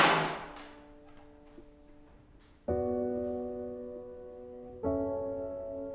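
Background film music: soft piano chords, one struck about two and a half seconds in and another near five seconds, each held and slowly fading. At the very start a brief noisy whoosh dies away over about a second.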